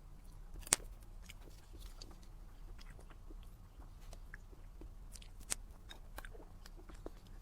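Close-up eating sounds of someone chewing a soft dessert: wet mouth clicks and smacks scattered throughout, with a sharper click about a second in and another about five seconds in.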